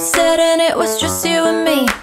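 Background pop music: one melodic phrase of held notes that ends near the end.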